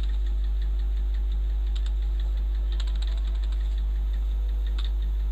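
Computer keyboard keystrokes: a few light key clicks in small bursts about two seconds in, around three seconds and near the end, typing a ledger name in Tally ERP 9. A steady low hum runs underneath and is the loudest thing.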